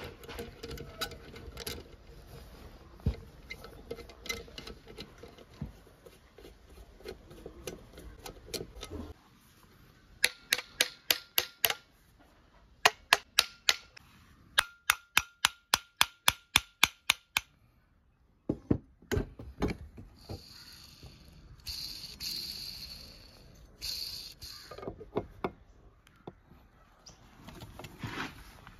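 Hand tools working on a car alternator as it is taken apart: scraping and clicking at first, then two runs of quick, even metal clicks at several a second, then knocks and short scraping hisses.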